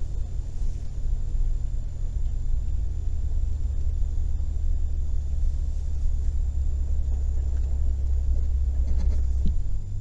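Low, steady rumble of a car driving, heard from inside the cabin. Near the end the deepest rumble eases into a steadier hum.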